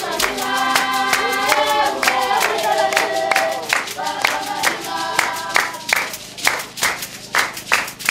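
Group singing with steady hand-clapping, about three claps a second, accompanying a Basarwa (San) dance. The singing drops out about six seconds in, leaving only the clapping.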